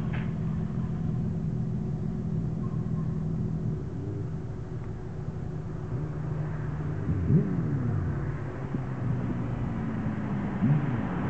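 A motor vehicle engine idling steadily, with a brief rising engine note about seven seconds in.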